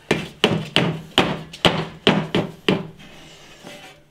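A Victorian cast iron fireplace range being rocked and walked back into the brick fireplace opening, knocking against the hearth and surround: a quick run of about eight knocks in under three seconds, then quieter scraping.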